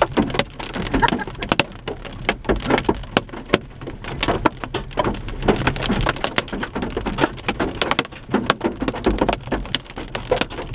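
Hailstones bigger than quarters pelting a car's roof, windows and windshield, heard from inside the cabin: a dense, irregular clatter of sharp hard impacts over a steady rain-like hiss.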